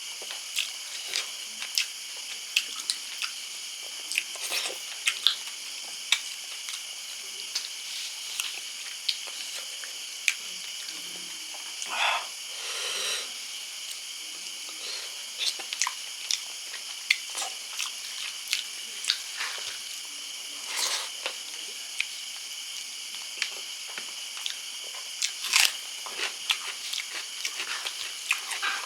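Close-up chewing and mouth noises of a person eating fish curry: irregular wet smacks, clicks and bites. A steady high chirring hiss, like insects, runs underneath.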